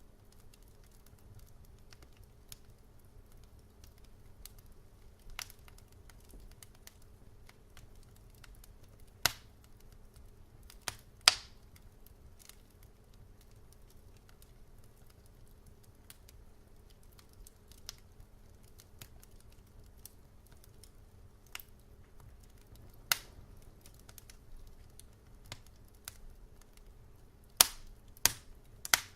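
Fire burning in a fireplace, crackling with irregular sharp pops: a few loud ones about 9 and 11 seconds in and again near the end, with smaller ticks between them. Under it runs a faint, steady low hum.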